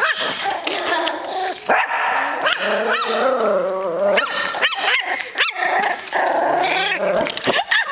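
Dogs play-fighting: a 9-week-old Miniature Schnauzer puppy's high, squeaky-toy-like yips, sharp and about once a second, over steady play growling.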